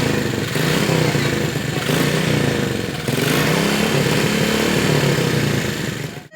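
Motorcycle and other road-traffic engines running and revving, with a wavering engine pitch throughout, breaking off suddenly at the end.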